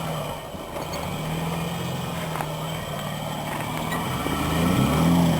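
Nissan D21 Hardbody's 3.0-litre V6 engine running at low revs as the truck crawls over rocks, its revs and loudness rising a little past four seconds in, with a faint knock about two and a half seconds in.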